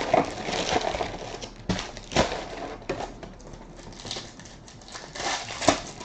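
Trading cards being handled and slid against one another, with a rustling shuffle and a few sharp taps.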